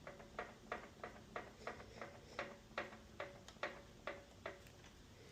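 Scag commercial walk-behind mower's four-stroke engine making a regular faint knock, about three sharp ticks a second. The mechanic takes it for a rod knock; the noise was in the end traced to the lifters.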